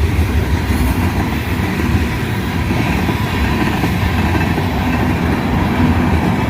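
Freight cars of a manifest train rolling past: a loud, steady rumble of steel wheels on the rails.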